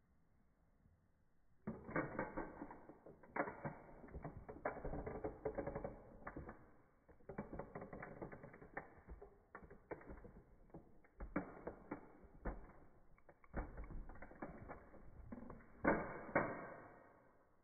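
Toy model car creaking and clicking under the weight of a high-heeled shoe pressing down on its roof: an irregular run of creaks and sharp cracks from its plastic and metal body, with the loudest cracks near the end as the shoe lifts off.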